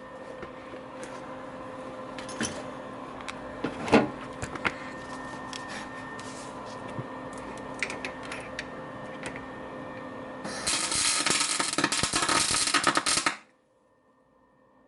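Steady electrical hum with light clicks and knocks of a steel washer and tools being handled, then, about ten seconds in, the crackling of a MIG welder arc for a couple of seconds, welding to galvanized steel. The welding stops abruptly.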